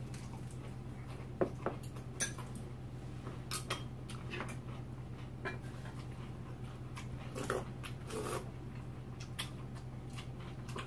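Spoons and chopsticks clinking on bowls and a metal stew pot, with a few short whines from a small dog, over a steady low hum.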